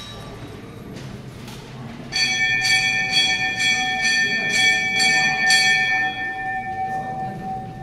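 Temple bell struck repeatedly, about two to three strokes a second, starting about two seconds in and ringing on, then fading toward the end.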